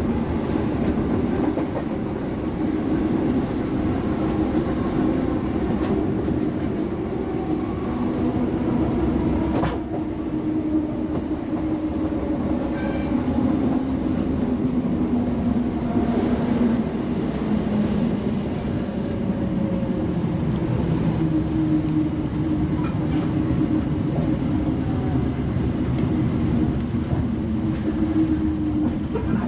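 Inside a Class 317 electric multiple unit running on the rails: a steady rumble of wheels and running gear, with a motor hum whose pitch falls gradually in the second half as the train slows for its station stop. A single sharp click about ten seconds in.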